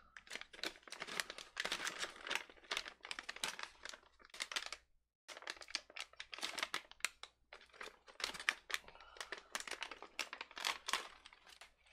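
Crinkly MRE cracker pouch being handled and opened: a dense run of irregular crinkling and rustling, with a short silent break about halfway through.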